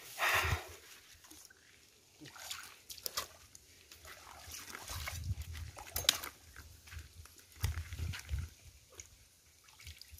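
Rubber boots wading and sloshing in shallow, muddy stream water, with a burst of rustling undergrowth at the start and scattered small splashes and clicks.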